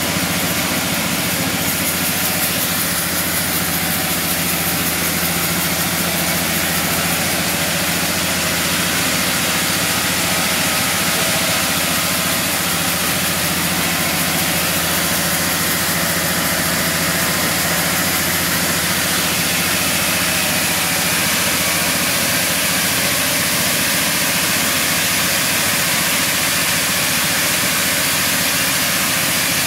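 Large sawmill band saw running and cutting lengthwise through a dry tamarind log: a steady, loud mix of the machine's motor tone and the blade's hiss through the wood.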